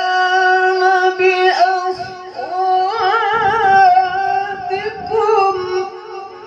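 A man's solo voice singing sholawat, the Islamic devotional chant, into a handheld microphone: long held notes broken by wavering, ornamented turns.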